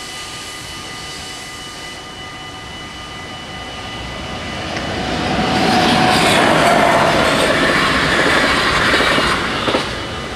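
NS DDAR double-deck train passing the level crossing: its rumble builds from about four seconds in, is loudest for a few seconds, then drops away quickly near the end. Under it the crossing's warning bells ring steadily.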